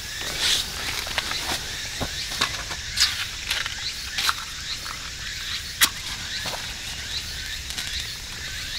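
Steady high chorus of insects in the woods, with scattered soft clicks and rustles from hands handling small items and one sharp click about six seconds in.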